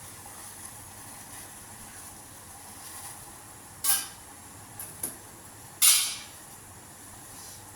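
Pan of water, grated ginger and tea leaves boiling with a steady hiss. About halfway through come a few short, sharp noises; the last is the loudest.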